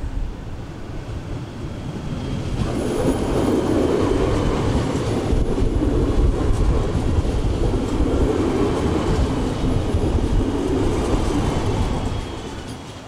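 Electric multiple-unit passenger train running alongside a station platform. The noise of its wheels on the rails builds over the first few seconds, stays loud while the cars pass close, and fades near the end.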